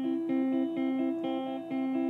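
Background music: a guitar picking a quick, repeating pattern of single notes, about four a second.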